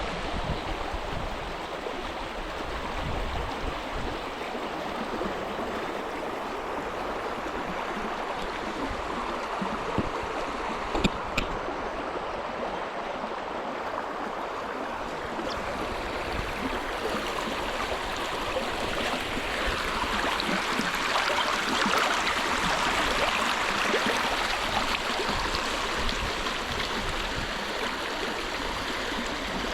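River water running over rocks, a steady rushing hiss that grows louder about two-thirds of the way through. Two sharp clicks about ten seconds in.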